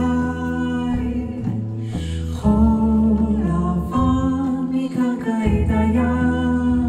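A woman singing long, sliding held notes without clear words, over a double bass playing low notes that change every second or so.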